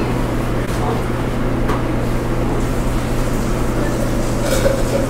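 Steady commercial-kitchen background noise with a constant low hum, and a few light clicks of utensils or dishes.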